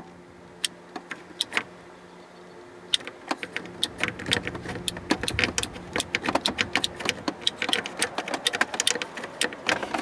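Rocker switches on a six-gang dash switch panel being flipped on and off, clicking. A few spaced clicks come first, then a fast run of clicks from about three seconds in, over a faint steady hum.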